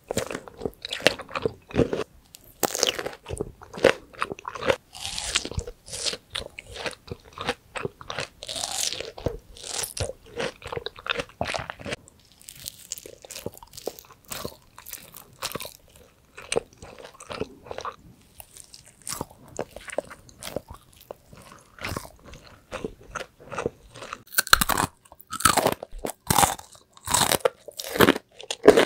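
Mouth eating sounds: biting and chewing glossy jelly-like foods, with irregular wet smacks, sticky lip clicks and bites. Dense runs of clicks come in clusters, with short lulls between them.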